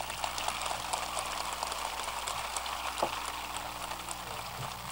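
Crowd applauding steadily, a dense crackle of many hands clapping.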